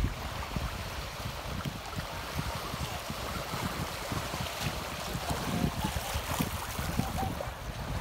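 Sea surf washing onto a beach, with gusty wind buffeting the microphone in low rumbles.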